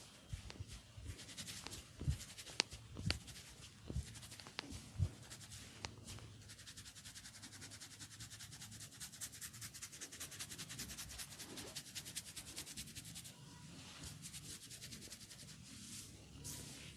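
Hands massaging and rubbing skin, with several sharp cracks in the first few seconds. From about six seconds in comes a fast, even run of rubbing strokes, which eases off near thirteen seconds.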